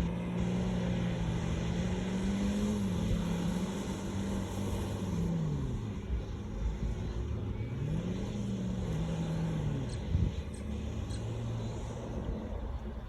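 A vehicle engine running under load while doing doughnuts, revving and easing off: its pitch holds, drops about six seconds in, climbs again around eight seconds and falls back near ten seconds, with a short knock near ten seconds.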